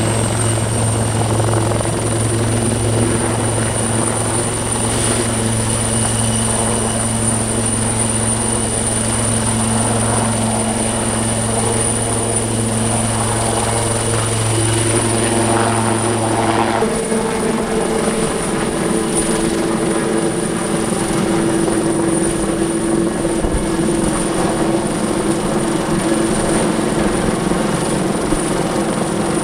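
Military helicopter running close by: a steady high turbine whine over rotor and engine noise. A little over halfway through, the deep low hum drops away while the whine and the higher engine tones carry on.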